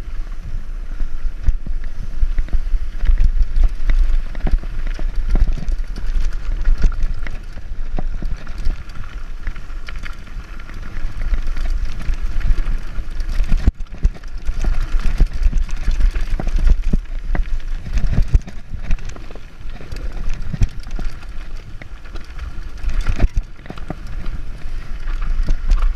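Mountain bike riding fast down a rough gravel track: tyres crunching over stones, the bike rattling and knocking over bumps, and wind rumbling hard on the camera's microphone.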